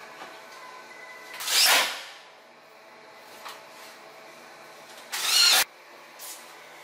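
Makita cordless drill driving screws into a cabinet door hinge in two short runs of about half a second each, the first a little under two seconds in and the second about five seconds in.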